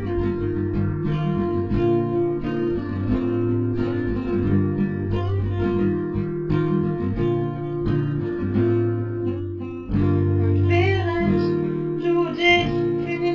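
Background music: a song driven by guitar over a bass line that moves in steady held notes.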